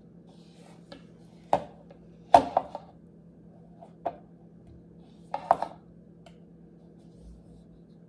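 A spoon clinking and knocking against a bowl while melted chocolate is stirred, in a few short clusters of clinks, the loudest about two seconds in.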